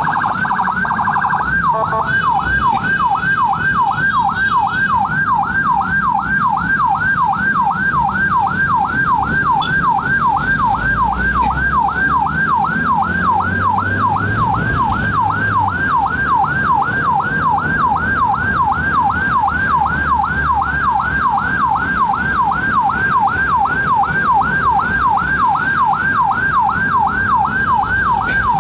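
Ambulance siren on its fast yelp setting, sweeping up and down about two and a half times a second, briefly switching to a quicker warble about a second in, over the low rumble of the vehicle.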